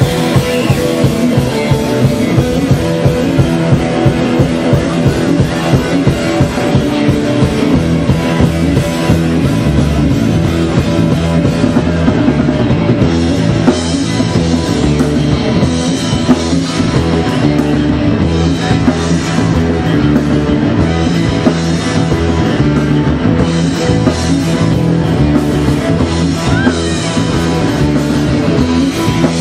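Live rock band playing loud: electric guitars over a steady drum-kit beat.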